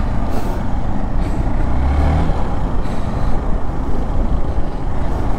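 Wind rushing over the microphone of a moving motorcycle, with engine and road rumble underneath; a deeper rumble swells briefly about two seconds in.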